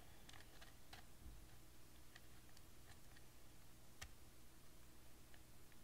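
Faint, scattered clicks of wooden puzzle pieces as fingers turn and nudge the laser-cut maze disc on a wooden puzzle box. The sharpest click comes about four seconds in, over a faint steady room hum.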